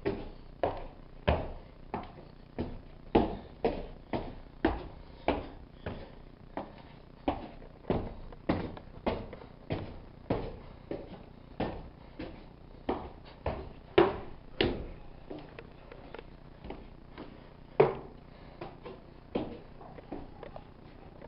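Footsteps on wooden stairs, about one to two steps a second, echoing off the stone walls, with a short pause about two-thirds of the way through.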